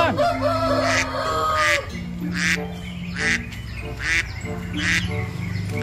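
Domestic ducks quacking, a series of short quacks a little under one a second, over background music.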